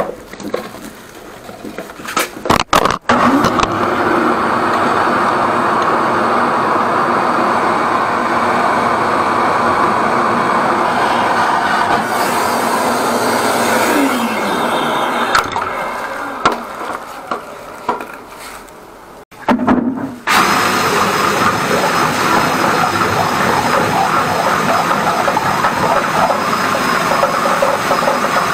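Electric drill driving a flexible-shaft drain cleaner, running steadily while the spinning shaft works inside a blocked urinal drain pipe. It fades and stops about two-thirds of the way through, then starts again about a second later and runs steadily.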